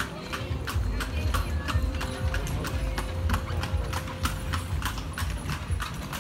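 Horse's hooves clip-clopping on a stone-paved street, a steady rhythm of about three strikes a second, over a low rumble, heard riding in a horse-drawn kalesa.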